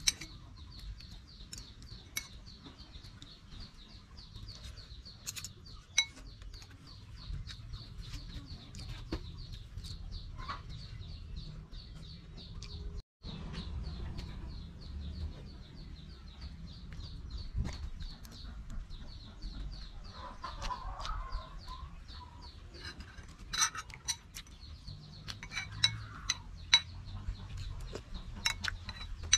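Chickens clucking, with a spoon clinking against a metal bowl now and then, the clinks coming more often near the end. A fast, high ticking runs steadily underneath.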